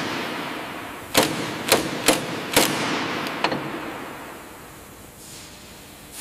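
Sharp metal knocks on steel, five of them unevenly spaced over the first three and a half seconds, each ringing on with a long echo that slowly dies away.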